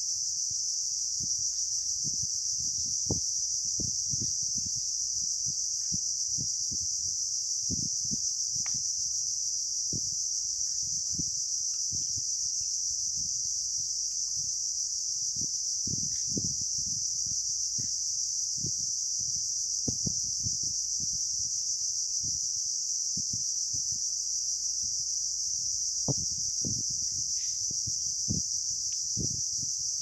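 Insects droning in a continuous high-pitched chorus that never lets up, with scattered soft low ticks and pops underneath at irregular intervals.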